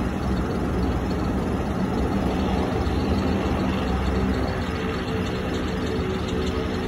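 Twin-engine widebody jet airliner's engines at takeoff thrust as it rolls, rotates and lifts off. A loud steady noise with a low hum that changes to a higher tone about four seconds in.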